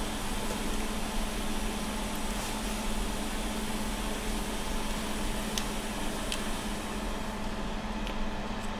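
Steady fan hum and air hiss from a hot air rework station's blower, with a couple of faint ticks in the middle.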